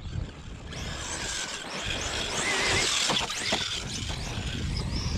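A Traxxas Sledge 1/8-scale electric RC monster truck is driven hard and passes close by. Its brushless motor whines and its tyres tear through loose dirt, with a brief wavering squeal near the middle and a few quick knocks shortly after.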